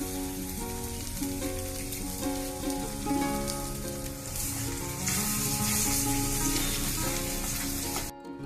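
Food sizzling as it fries in a pan, the sizzle growing louder about halfway through, over background music. It cuts off abruptly just before the end.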